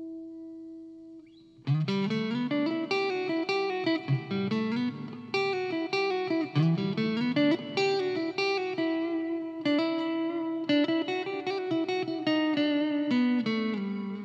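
Electric Stratocaster with Fender N3 Noiseless pickups: a held chord dies away, then a little under two seconds in a run of picked single notes and chords starts and carries on, the last notes ringing out near the end.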